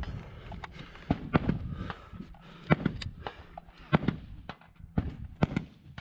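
AR-15 rifle shots fired in an irregular string, roughly one every half second to a second, some sharp and loud and others fainter.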